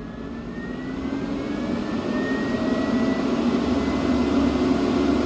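Electric radiator fan spinning up under a PWM speed controller as its speed is slowly turned up, drawing close to 6 amps. Its rushing air and a thin whine rise steadily in pitch and loudness.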